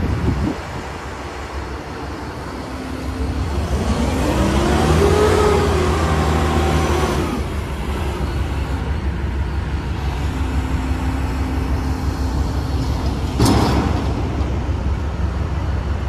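Steady low engine rumble, with an engine's pitch rising and then falling back over a few seconds near the middle, and a brief sharp hiss about three-quarters of the way through.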